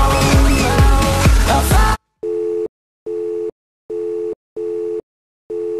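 A pop song plays, then cuts off suddenly about two seconds in; five short electronic beeps follow, all at one steady pitch, each about half a second long with gaps of uneven length.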